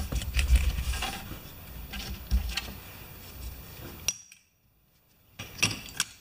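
Light metallic clinks and clatter of tools and parts being handled on a lawn tractor transaxle's metal housing, with a low rumble in the first second. About four seconds in, the sound drops to complete silence for roughly a second, and a few sharp clinks follow.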